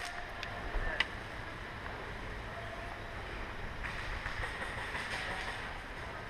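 Steady rushing noise like wind on the microphone, with a faint click about a second in.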